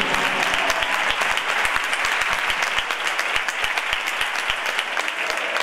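Spectators applauding a boxing decision, individual claps standing out from a dense, steady patter.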